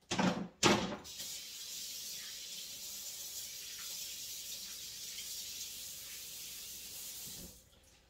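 Two knocks, then a kitchen faucet running steadily for about six seconds and shutting off near the end: water for washing hands after handling raw chicken.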